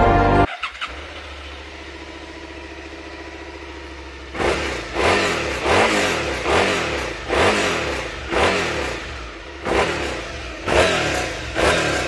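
2020 Suzuki SV650X's 645 cc V-twin, breathing through its stock muffler, starts just under a second in and idles steadily. From about four seconds in it is blipped in short revs, about eight of them, roughly one a second, each falling back toward idle.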